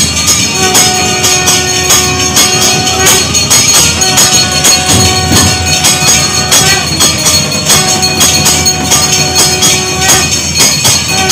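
Temple music during a camphor-lamp aarti: bells and percussion beating a steady rhythm about twice a second, with long held notes over it that break off and come back every few seconds.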